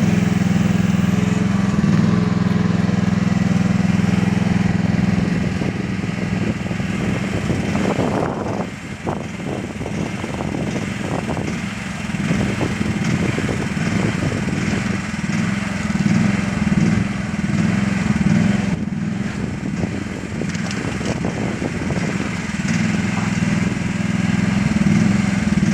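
Mini excavator's small diesel engine running, at first steady, then from about eight seconds in its note and level waver up and down.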